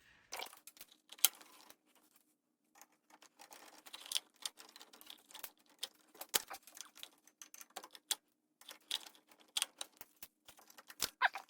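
Irregular small clicks and taps of a screwdriver, screws and metal parts as a panel is screwed back onto a Nakamichi 700 cassette deck's chassis, over a faint steady hum.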